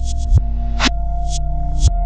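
Electronic background music with held synth tones, a heavy bass line and a steady beat of kick drum and hi-hats.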